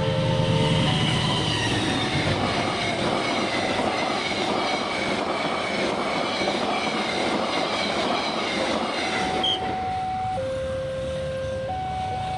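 Train passing at speed over a level crossing, a loud dense rush of wheels and cars. Under it the crossing's electronic warning alarm alternates between two tones, coming through clearly again from about nine seconds in once the train has passed.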